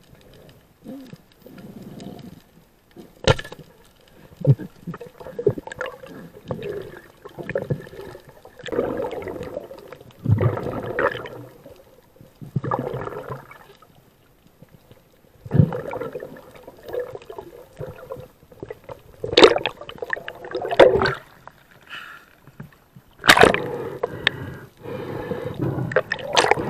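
Muffled underwater water noise, gurgling and sloshing in irregular bursts, with a few sharp knocks.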